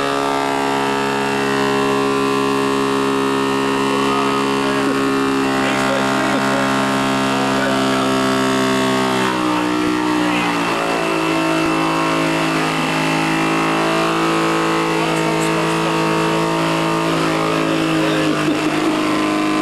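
Vacuum cleaner motor running continuously with a steady whine; its pitch dips slightly about ten seconds in and then holds at the lower note.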